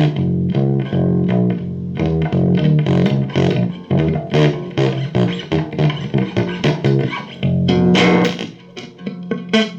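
Guitar music: a quick run of plucked guitar notes over a bass guitar line, with a brief drop and a change of notes near the end.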